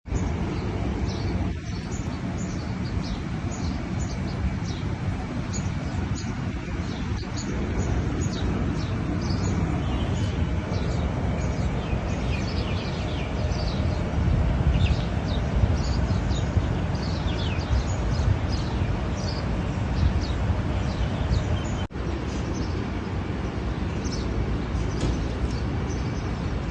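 Birds chirping again and again, quick short falling calls, over a steady low rushing noise.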